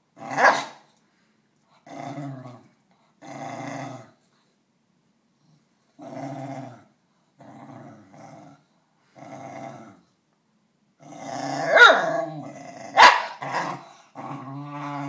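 Basenji growling over a chew to warn another dog off it: a string of low growls, each under a second, with three sharper, louder snarling outbursts, one right at the start and two in quick succession about three-quarters of the way through.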